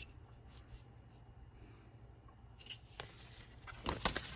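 Paper and card being handled: a few faint taps, then a run of rustles and light taps near the end.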